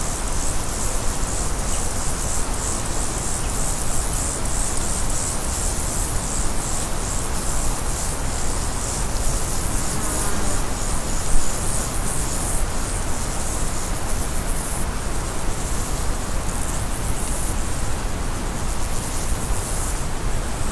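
Steady, even hiss of noise filling the whole range, with a fine crackling texture in the high end and one brief louder pop about halfway through.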